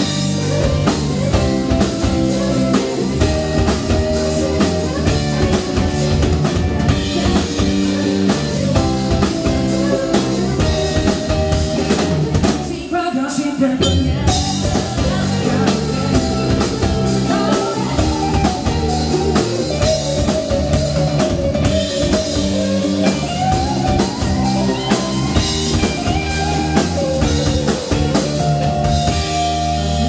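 Band playing live: a rock song with drum kit and guitar under a singer's sustained vocal line, briefly thinning out about halfway before coming back in.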